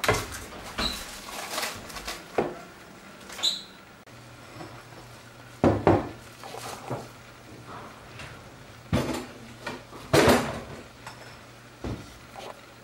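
Bowls and kitchenware being handled and set down on a countertop: an irregular series of clinks and knocks, the loudest about six seconds in and again about ten seconds in.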